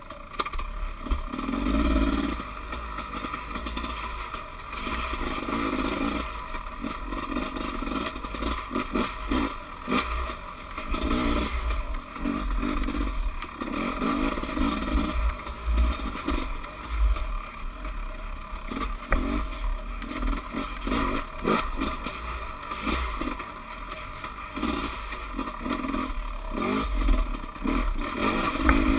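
Dirt bike engine heard from on board, surging and easing every second or two as the throttle is worked along a rough trail, with frequent clattering knocks from the bike over bumps.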